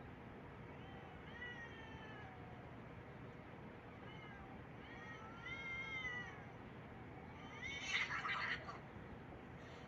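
A cat meowing several times, with arching calls that rise and fall in pitch. About eight seconds in comes a louder, harsher cry.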